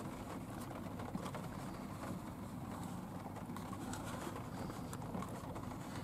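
Steady low hum inside a car cabin, with a few faint clicks as a paper snack box is handled.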